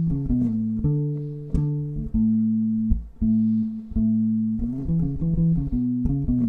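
Electric bass guitar played solo, with no backing: long held notes broken by quick runs of short fill notes, about five seconds in and around the start.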